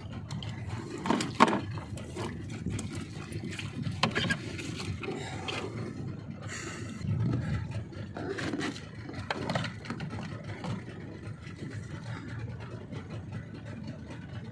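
Small fishing boat's engine running at idle as a steady low rumble, with scattered knocks and scrapes on the boat, the loudest about a second and a half in.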